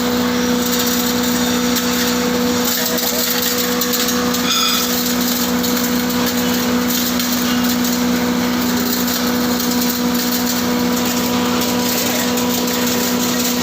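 Wood chipper running steadily, a constant mechanical drone with a steady hum.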